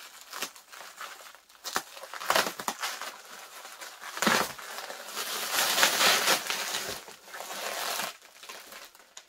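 Plastic bubble wrap crinkling and rustling as it is pulled and cut away with scissors, with a few sharp crackles early on. It grows louder and more continuous from about five to eight seconds in.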